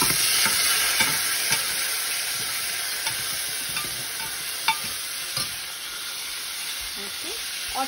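Frozen peas sizzling as they drop into hot ghee in a pressure cooker and are stirred with a metal ladle. The sizzle is loudest at first and slowly dies down, with a few sharp metal clicks.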